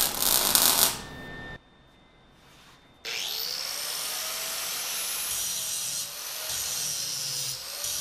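Arc welding on a steel angle-iron frame, a loud, even crackling hiss that stops about a second in. About three seconds in an angle grinder spins up with a rising whine and then grinds steadily against the steel.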